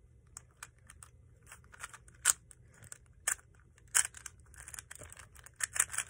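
Dunkin'-branded 3x3 puzzle cube being turned by hand: scattered plastic clicks and scrapes as its layers turn, getting quicker and denser near the end.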